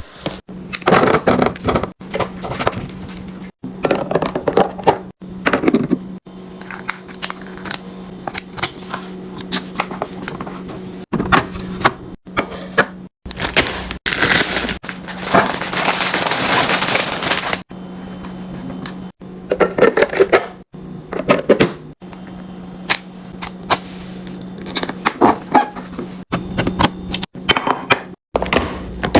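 Plastic food containers, packets and drinks being handled and set onto fridge shelves: many short clicks, taps and knocks, with a longer rustling stretch in the middle and a low steady hum underneath.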